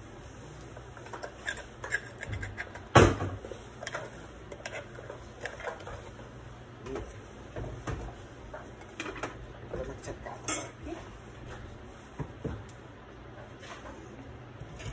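Metal spoon scraping and knocking against a wooden mortar (pilón) while crushed garlic is scooped out into a bowl: scattered knocks and scrapes, the loudest about three seconds in.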